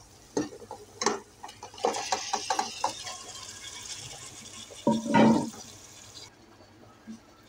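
Masala-marinated chicken tipped and scraped out of a steel bowl into a pressure cooker of fried onions: metal clinks and knocks, then a hissing sizzle as the chicken meets the hot oil, cutting off about six seconds in. A brief louder squeal about five seconds in.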